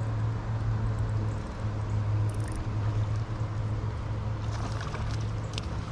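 Steady rush of river water pouring over a nearby dam, with a constant low rumble under it.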